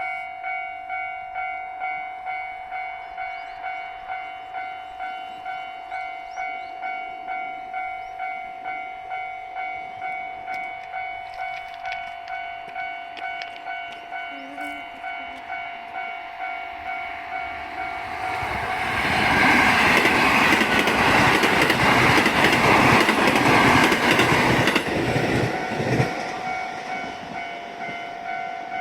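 Japanese railway level-crossing warning bell ringing in a steady, rapid, even rhythm. About 18 seconds in, a train comes through the crossing: its running noise swells loud for about seven seconds and then dies away while the bell keeps ringing.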